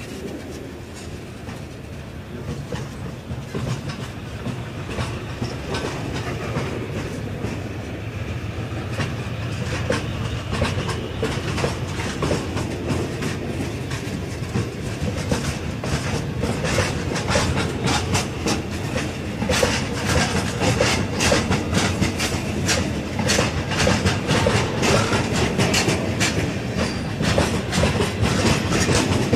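Loaded wagons of a heavy chrome freight train rolling past close by: a steady rumble of steel wheels on rail with rhythmic clickety-clack over the rail joints, growing louder and more clattery through the second half.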